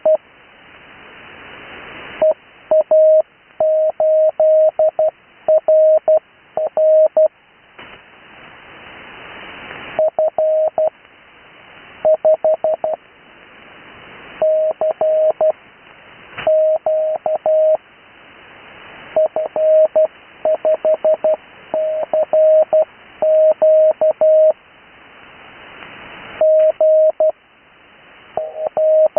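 Morse code (CW) tone sending amateur radio call signs: a single steady pitch keyed in dots and dashes, in short groups separated by pauses. A background hiss swells in each pause and drops when the keying resumes.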